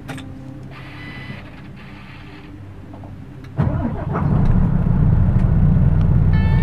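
MAN truck's diesel engine started with the key: after a quieter stretch it cranks and catches about three and a half seconds in, then runs at a steady, loud idle.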